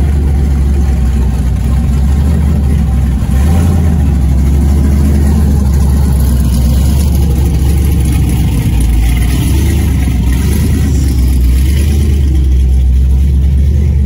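A car engine running steadily, loud and low-pitched.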